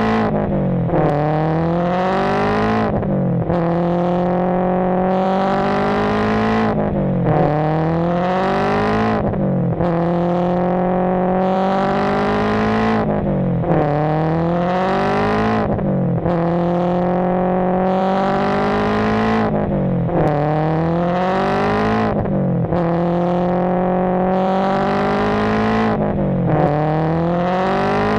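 Racing-car engine revving up through the gears, its pitch climbing steadily and dropping sharply at each upshift, in an even cycle about every three seconds, like a looped sound effect.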